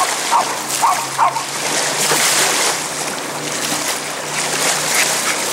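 Boat wake waves washing and splashing onto a sandy shore beside a beached aluminium jet boat, over a faint steady low hum from the passing jet boat's engine. A few short, sharp sounds stand out in the first second and a half.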